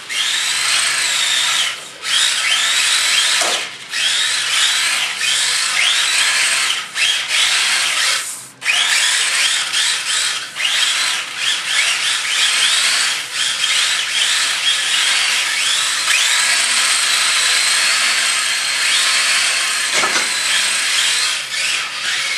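Tamiya TT-01E RC touring cars' 20-turn brushed electric motors whining, the pitch rising and falling again and again as the throttle is worked during drifting, over a steady hiss of tyres sliding on a concrete floor.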